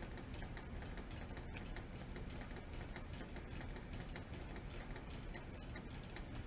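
Hands sorting skeins of stranded embroidery floss on a table, making many small, irregular clicks and rustles as the threads are pulled apart.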